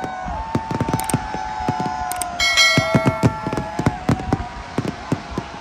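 Aerial fireworks display: a rapid run of bangs and crackles from bursting shells, with long whistling tones running underneath. A short bell-like chime rings out about two and a half seconds in.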